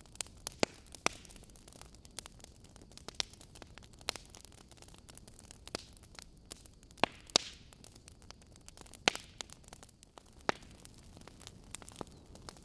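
Wood fire burning in a fireplace: irregular sharp crackles and pops from the burning logs over a soft steady hiss, with a few louder pops about a second in, around seven seconds in, and again about nine seconds in.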